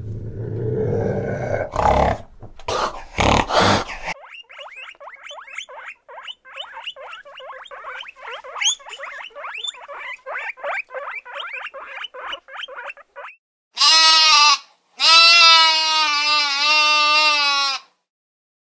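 A fishing cat growling in rough bursts, then guinea pigs squeaking in a rapid run of short chirps, several a second. After that, a lamb bleats twice, a short bleat and then a longer one of about three seconds.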